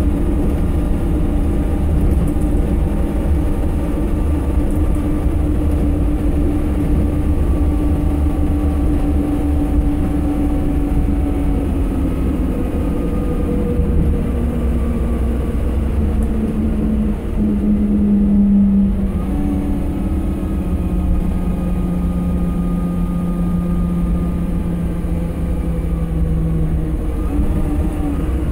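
Optare Solo bus's Mercedes-Benz diesel engine and drivetrain running on the move, heard from inside the passenger cabin: a heavy low rumble with a whine that drifts and steps up and down in pitch, shifting noticeably about two-thirds of the way through.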